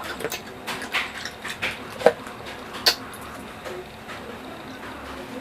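Close-miked sounds of someone eating rambutan fruit: irregular wet clicks and smacks of chewing, sharpest about one, two and three seconds in.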